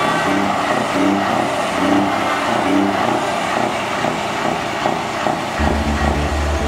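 Electronic dance music in a breakdown: a hissing noise sweep and a light repeating synth pattern with the bass gone, the heavy bass coming back in about five and a half seconds in.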